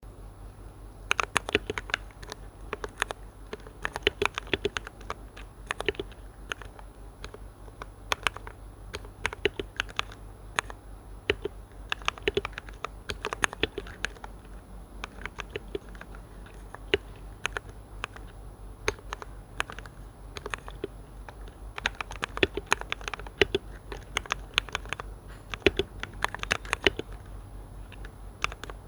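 Irregular light clicks and taps in uneven clusters, over a steady low hum and a faint constant high-pitched whine.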